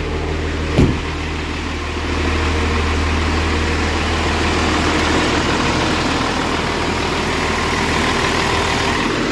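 Truck engine idling steadily, with one short knock about a second in.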